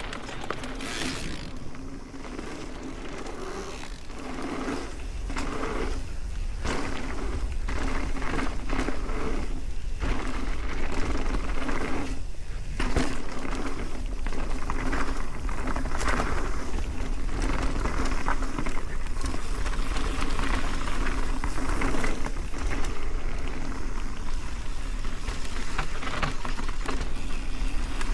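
Mountain bike riding down a dirt trail: tyres rolling over dirt, with many short rattles and clunks from the bike and wind buffeting the microphone. It gets louder over the first several seconds.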